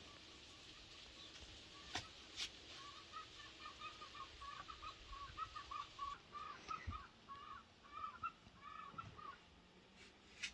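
Chickens clucking faintly in a quick run of short calls, starting about three seconds in and stopping a little before the end. Two sharp clicks come shortly before the clucking starts.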